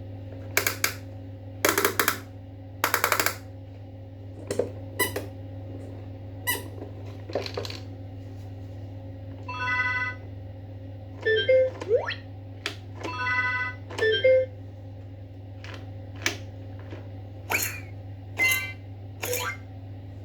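A toy being played with: a series of short clicks and squeaks, two buzzing rattles early on, and short electronic tone bursts a little past the middle, all over a steady low hum.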